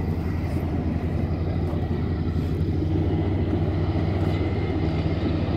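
Heavy construction machinery engine running steadily at constant speed: an even, low drone.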